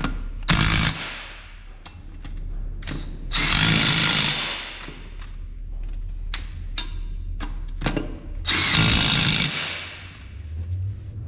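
Cordless DeWalt impact wrench hammering the hub bolts into a truck's front spindle, in three bursts: a short one about half a second in, then two of about a second and a half each. Short metal clicks from handling the tool and parts come between the bursts.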